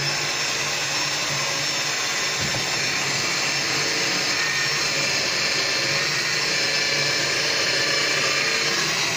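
Bosch benchtop drill press running at steady speed, its motor a whine with several high tones, while the bit bores into a small block of pine.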